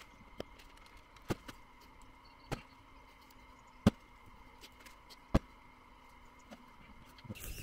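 Sharp clicks and taps from metal kebab skewers and chunks of marinated steak and vegetables against a wooden cutting board as the kebabs are threaded, about five distinct clicks spaced a second or more apart.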